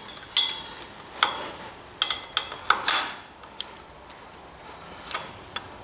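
Steel wrenches clicking and clinking against a nut and bolt as a locknut is tightened on a Ford 800 tractor's clutch pedal stop adjusting screw. The clicks are sharp and irregularly spaced, about eight or nine of them, some with a short metallic ring.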